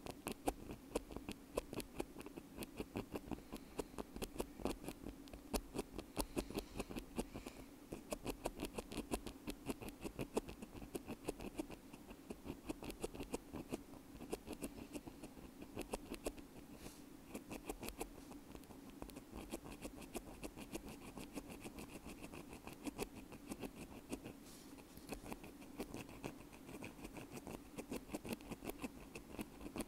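Bamboo ear pick scratching against a wired earbud, a continuous run of dry little scratches and clicks, several a second.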